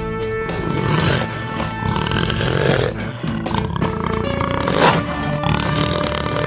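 A big cat roaring several times over background music.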